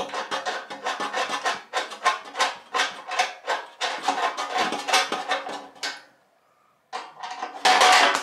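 Hand screwdriver turning a screw into a grill panel, a rhythmic rasping scrape at about two to three strokes a second that stops about six seconds in. A short, louder scrape follows near the end.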